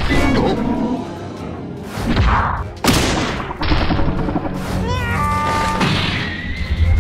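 Cartoon fight sound effects over background music: several thuds and a sharp hit about three seconds in.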